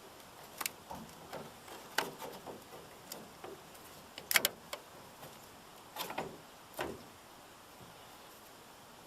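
Scattered clicks, knocks and rattles of hands working a truck taillight assembly and its 3157 bulb sockets, with a sharp double click about four and a half seconds in.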